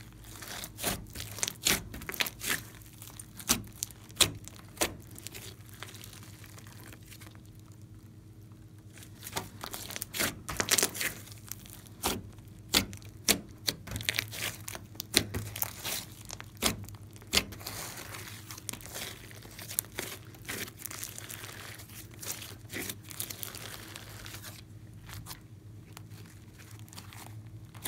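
Glossy slime mixed with clay and glitter being squeezed, pressed and stretched by hand, giving irregular sticky pops and clicks, with a quieter stretch partway through.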